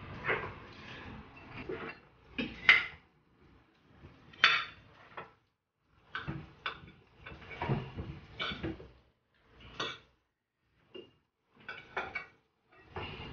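Forks and spoons clinking and scraping against plates, in irregular scattered taps with short pauses between them.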